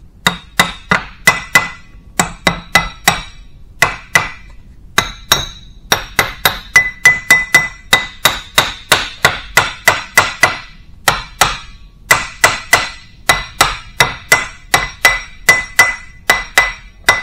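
Ball-peen hammer tapping the end cap of a steel hydraulic cylinder into the barrel: many sharp metallic strikes, about three a second, each with a short ring. They come in quick runs with brief pauses.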